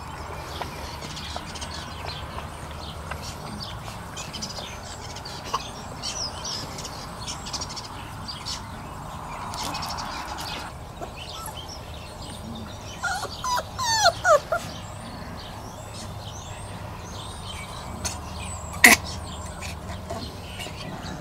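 Outdoor background with scattered high chirps; about two-thirds of the way through, a quick run of short, falling animal calls, the loudest sound, and a single sharp click near the end.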